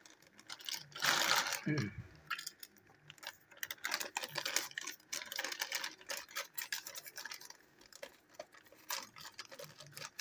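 Plastic packaging rustling and crinkling as it is handled up close, with scattered light clicks and taps; a louder rustle about a second in.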